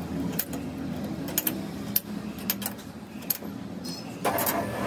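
Scattered light metallic clicks and taps of tooling being set on a crankshaft grinding machine, over a low machine hum. Near the end, a louder, steady machine noise comes in.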